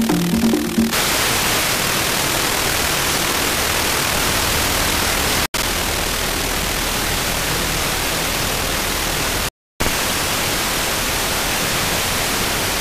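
A software-defined radio's FM demodulator hissing with static on a frequency without a station, after the last second of a station's music. The steady hiss drops out briefly twice. The owner blames the raised noise on the band on interference from cheap electronics such as battery chargers and LED strips.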